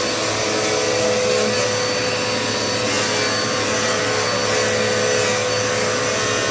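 Dirt Devil Multi-Surface upright vacuum cleaner running steadily, its motor giving a constant whine over the rush of suction air.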